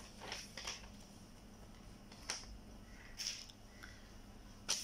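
Faint, scattered rustles and light taps of paper being handled on a clipboard, a handful of short sounds at uneven times over a steady low hum.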